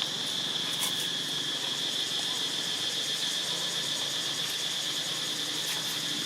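Insects droning in a steady, unbroken high-pitched chorus, with a few faint clicks.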